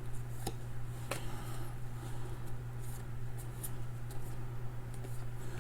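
Trading cards being handled and slid through a stack, with soft rustles and a couple of sharp clicks, over a steady low electrical hum.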